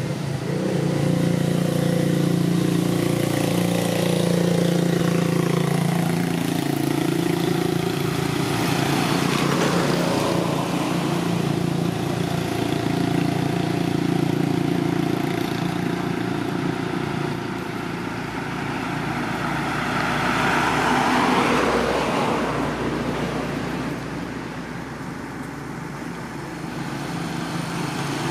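Road traffic: a motor vehicle engine running steadily close by, with other vehicles passing about ten and twenty seconds in.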